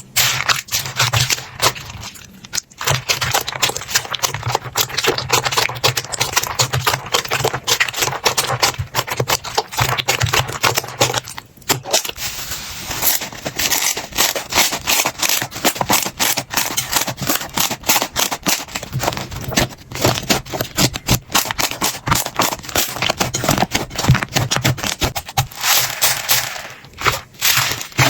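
Slime being handled and squished: a dense, steady run of crackles, pops and squelches, with brief pauses about two and a half and eleven and a half seconds in.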